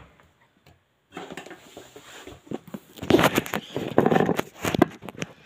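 Paper and packaging handled on a desk: rustling with many light clicks and knocks, starting about a second in.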